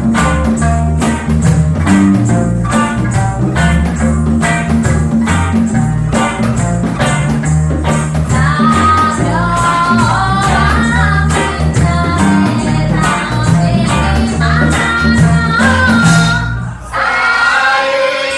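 Live reggae band playing a steady bass line over regular, evenly spaced percussion; a voice starts singing about halfway through, and the band drops out for a moment near the end.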